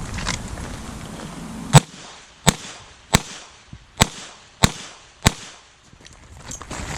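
Six revolver shots from a Smith & Wesson Model 66 Combat Magnum firing .38 Special, spaced well under a second apart, the first the loudest: a full cylinder emptied in one string.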